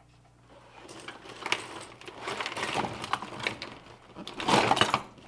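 Handling noise on a cluttered tabletop: small plastic items clicking and rustling, then a cardboard product box handled near the end, which is the loudest part.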